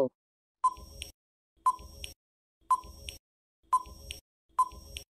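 Countdown timer sound effect: five short, sharp ticks about one a second, each with a brief clear ring.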